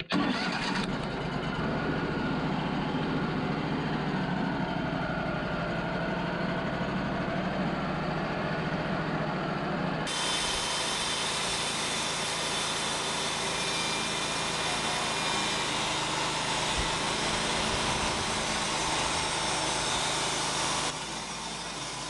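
Wood-Mizer LT35 portable band sawmill running steadily. About ten seconds in a loud, hissing cut sound joins it as the band blade saws through a log. Near the end it drops back to the steady machine sound alone.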